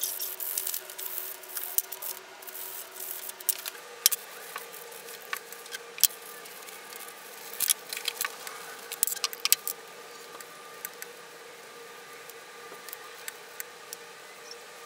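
Sandpaper rubbing briskly along the edges of small walnut blocks, chamfering them. After about four seconds this gives way to small walnut pieces clicking and knocking on a benchtop as they are picked up, set down and wiped with oil, over a steady background hum.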